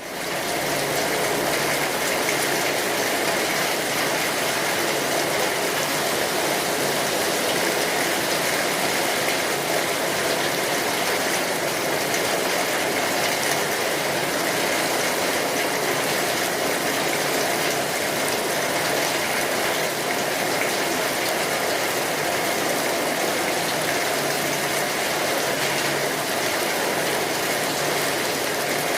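Steady heavy rain, a constant dense hiss that comes in quickly at the start.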